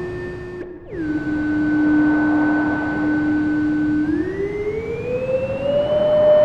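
Arturia MiniBrute 2 monophonic analog synthesizer playing held single notes over a light hiss. A short note ends, then about a second in a new note swoops down into a steady tone, and after about four seconds it glides slowly up about an octave and holds.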